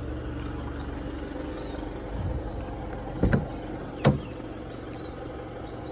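Pickup truck engine idling steadily. Two sharp clicks, about three and four seconds in, as the driver's door latch releases and the door swings open.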